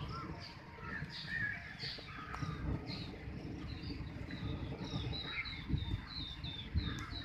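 Birds calling with short repeated chirps, which become a quick run of falling chirps, about two a second, in the second half. Under them runs a gusty low rumble of wind on the microphone.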